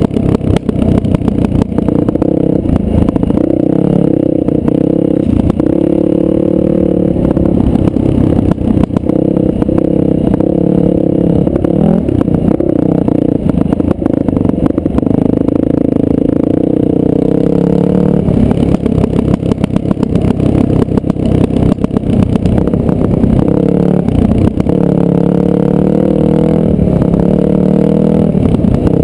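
Dirt bike engine running steadily as the bike is ridden along a rough dirt trail, its note wavering slightly with the throttle, with frequent short knocks and rattles.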